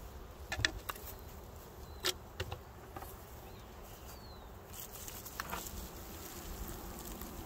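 A few short knocks and scrapes as items are picked off a wooden beehive cover and the cover is lifted away, over a faint hum of honeybees.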